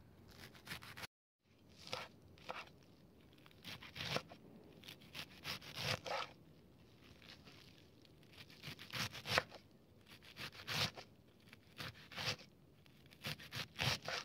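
A large kitchen knife chopping a bunch of fresh leafy herbs and green onions on a cutting board: quick runs of crisp cuts through the leaves and stalks, separated by short pauses, with a brief silent break about a second in.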